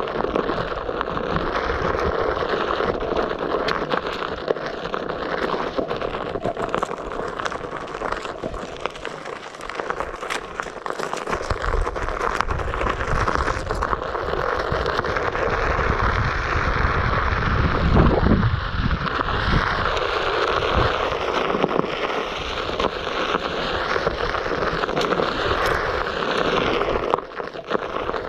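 Onewheel Pint's tyre rolling over a dirt and gravel trail: a steady crunching, scraping hiss. Wind buffets the microphone with a low rumble for several seconds in the middle.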